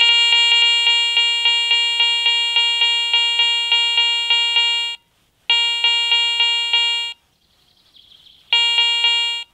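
Garrett ACE 400i metal detector sounding its target tone as a dog tag is picked up through a Cors Strike search coil near the limit of its range: a buzzy electronic tone pulsing about three times a second. It cuts off twice and comes back as the target drops in and out of detection.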